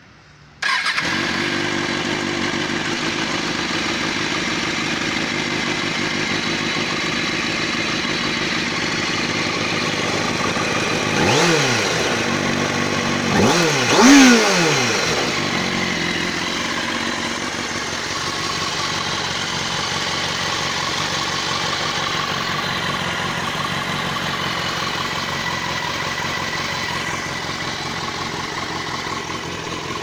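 Kawasaki Ninja ZX-6R's inline-four engine starting on the button, catching in under a second and then idling steadily, with a few quick throttle blips about 11 to 14 seconds in. The cam chain can be heard, which the owner puts down to the engine not yet being warmed up.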